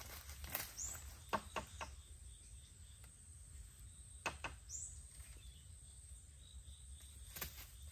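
Scattered dry crackles and knocks as someone walks on leaf litter and handles dry bamboo stalks. Twice, a short high bird chirp falls in pitch, over a faint steady high insect hum.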